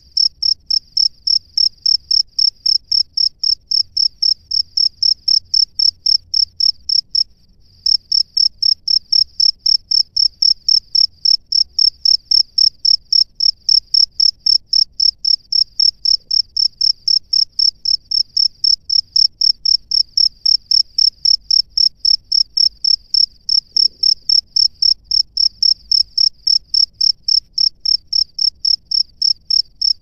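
A male cricket chirping from its burrow in a steady, even run of high-pitched chirps, with one short pause about seven seconds in. This is its calling song to attract a female.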